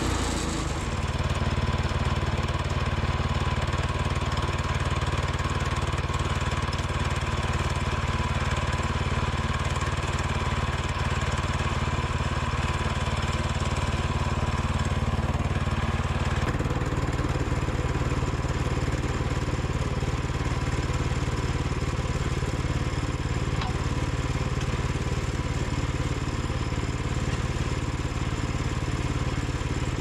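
Small gasoline engine of a Woodland Mills portable bandsaw mill running steadily; its note changes abruptly about halfway through.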